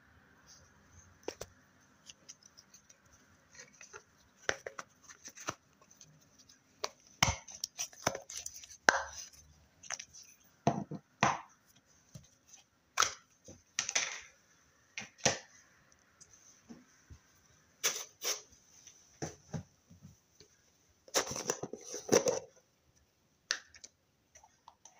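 Slime being handled, squeezed and poked: irregular short clicks and pops, with a denser run of squishing about 21 seconds in.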